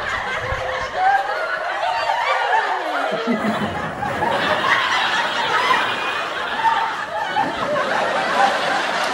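People laughing, with a sound sliding down in pitch about two to three seconds in.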